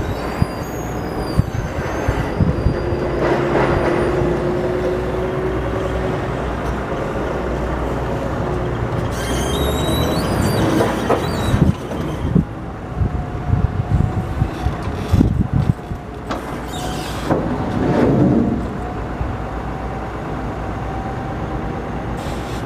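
Forklift working beside an empty flatbed trailer: a steady low engine rumble, with scattered metal clanks, brief high squeals and a held tone through the middle stretch.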